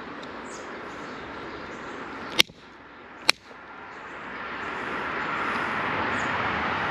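Two sharp metal strikes almost a second apart: channel-lock pliers hitting a soldered copper pipe fitting. Beneath them a steady rushing noise swells toward the end.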